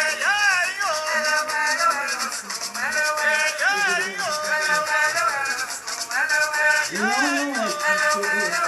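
An Afro-Brazilian Batuque ritual song: voices singing a melody with rising and falling glides, over a shaken rattle that keeps a steady, quick rhythm.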